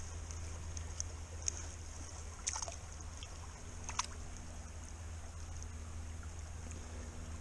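Shallow river running steadily, a low rumble with a hiss on top, while a hand reaching through bankside grass into the water makes a few short, light handling sounds in the first half.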